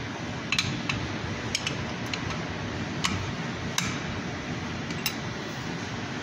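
Sharp metallic clicks and clinks at irregular intervals as a new brake shoe and its hardware are handled and fitted onto the drum-brake backing plate of an Isuzu NPR truck. A steady low hum runs underneath.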